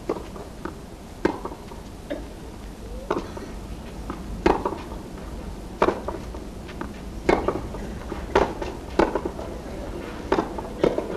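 Tennis rally: a ball struck back and forth with wooden racquets, sharp hits about every second and a half, with fainter bounces in between.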